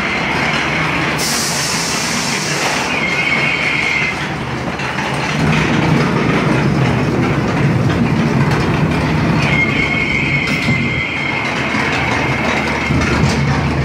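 Ghost-train ride car running along its track with a steady rumble and rattle. A high, steady wheel squeal comes and goes, around 3 to 4 seconds in and again from about 9.5 seconds on, with a brief hiss between about 1 and 3 seconds.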